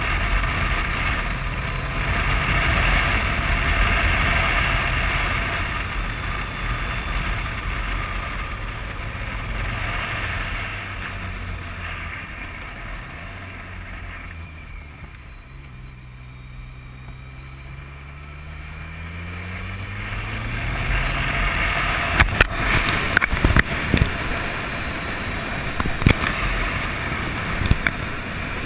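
BMW motorcycle engine running under heavy wind rush on the microphone. About halfway through, the engine note drops and quietens as the bike slows through a hairpin, then rises again as it accelerates out. Near the end, sharp knocks and rubbing sound as the camera is bumped against the rider's jacket.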